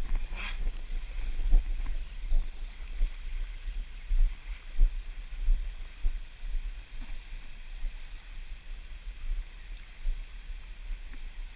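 River current rushing over rocks, with wind rumbling unevenly on the microphone.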